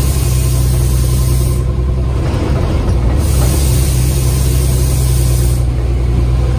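Bus engine running with a steady low drone as the bus drives, heard from inside the cabin, with a high hiss that comes and goes twice over it.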